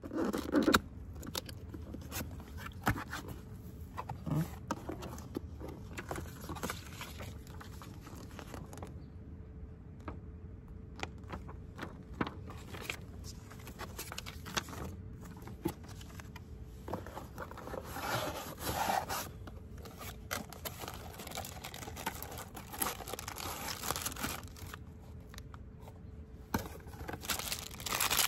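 Cardboard speaker box and its packaging being handled and opened: scraping of cardboard flaps, paper inserts and plastic bags rustling and crinkling, with many irregular small clicks and knocks. The loudest handling noise is about a second in.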